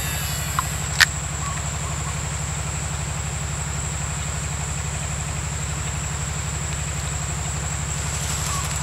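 A steady low mechanical drone with a fast, even pulse, under a constant high whine. About a second in, a sharp click as the fishing reel is engaged after the cast.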